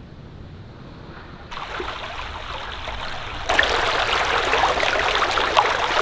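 Shallow stream running over rocks, a steady rushing of water that sets in about a second and a half in and grows louder about halfway through.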